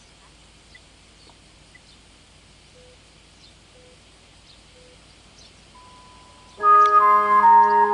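Quiet outdoor ambience with a few faint chirps, then about six and a half seconds in the 6 a.m. morning chime of a town wired-broadcast loudspeaker system starts: a loud electronic organ-like melody from a Victor chime unit, signalling the time.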